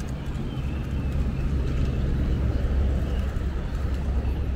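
Steady low mechanical rumble, growing a little louder in the middle, over a faint murmur of distant voices.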